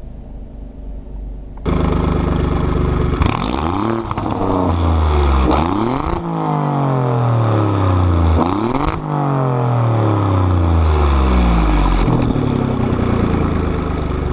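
Alfa Romeo Giulia Quadrifoglio's 2.9-litre twin-turbo V6 free-revving through its quad exhaust, with the exhaust flaps held fully open in dynamic mode by a software remap. The engine gets abruptly louder about two seconds in, then is blipped several times, each a quick rise in pitch and a slower fall back, before settling to a steady note near the end.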